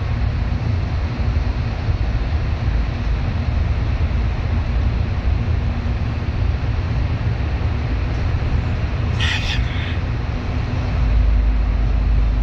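Bus running on the road: a steady low engine and road rumble, with a brief hiss about nine seconds in, and the low rumble growing louder near the end.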